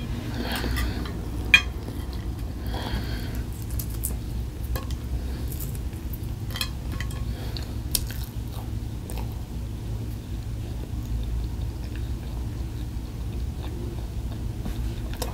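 A person eating: chewing food, with a few sharp clicks of a fork against a plate, the loudest about a second and a half in, over a steady low hum.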